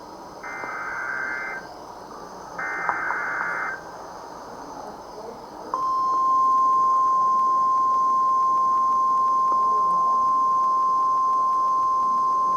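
NOAA Weather Radio alert signal: two short warbling digital bursts of the SAME alert header, each about a second long, then a few seconds in the steady 1050 Hz warning alarm tone starts and holds. It announces an incoming severe thunderstorm warning.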